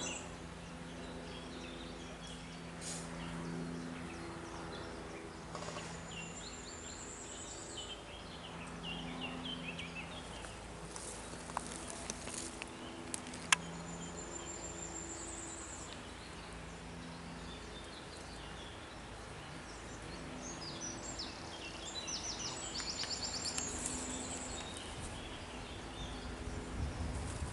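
Songbirds singing, with repeated high trilled phrases. Under them runs a low hum that comes and goes, and a few sharp clicks sound around the middle.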